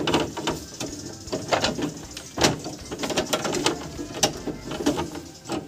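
A long screwdriver pushed through a plastic grille, clicking and scraping irregularly against metal as it works a screw loose.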